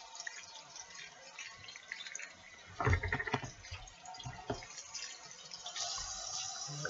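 Tap water running into a stainless steel sink while a clear plastic container is rinsed under the stream. A cluster of knocks and splashes comes about three seconds in, and another shortly after.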